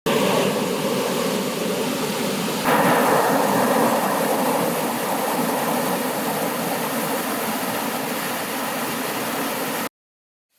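Rushing river water, a steady noise that jumps louder a little under three seconds in and cuts off abruptly near the end.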